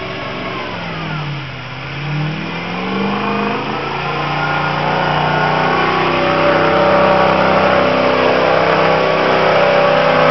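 Off-road vehicle's engine revving hard. Its pitch dips about a second in, then climbs and is held at high revs, growing louder through the rest.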